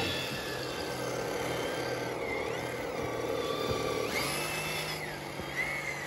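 Electric motor and gearbox of an eight-wheeled RC rock crawler truck whining as it crawls over rock. The whine's pitch rises and falls several times with the throttle.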